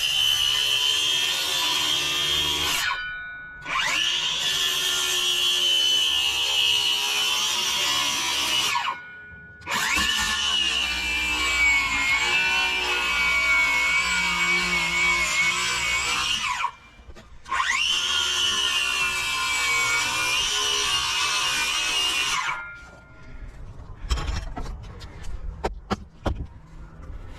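Power saw cutting an opening through wooden roof sheathing: four runs of a high motor whine with short stops between them, the pitch sagging as the blade bites and recovering. A few knocks and clicks near the end.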